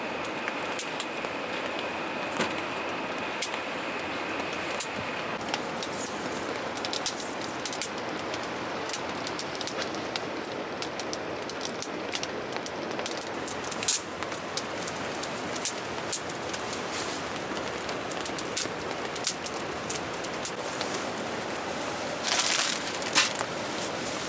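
Steady rain falling, an even hiss dotted with many sharp ticks of drops, with a louder rush of noise for about a second near the end.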